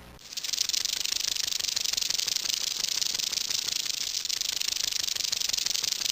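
An animal's steady buzzing rattle, made of very fast ticks, starting abruptly a moment in and held at an even level.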